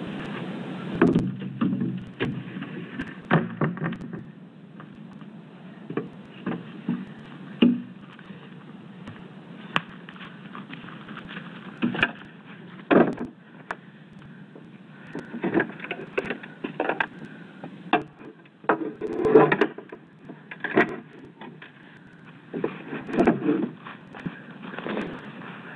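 Irregular knocks, bumps and scraping rubs on a trail camera's case as an animal presses against it and handles it. The knocks come in uneven clusters over the camera's steady low hiss.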